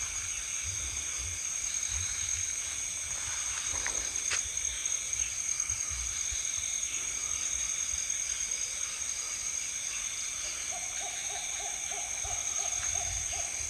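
An owl calling a quick series of about ten short, even hoots, about four a second, starting near the end, over the steady chirring of night insects.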